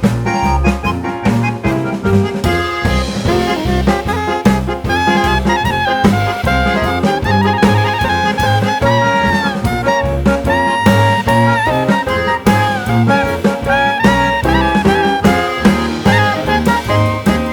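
Background music: a melody of gliding, shifting notes over a steady beat.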